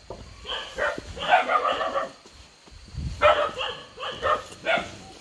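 A dog barking in two quick runs of barks, the first about half a second in and the second about three seconds in.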